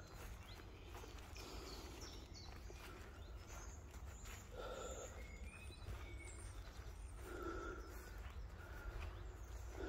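Quiet outdoor background with a steady low rumble and a few faint, short calls, around the middle and later on.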